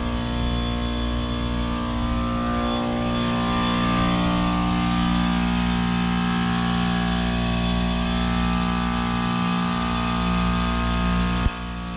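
Trane Odyssey heat pump running through a defrost cycle: a steady compressor and machinery hum with many held tones over a noisy rush. Near the end a sharp click, after which the unit runs a little quieter.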